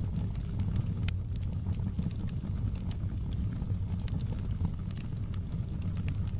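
Wood fire burning in a fireplace: scattered sharp crackles and pops of the logs over a steady low rumble, with one louder pop about a second in.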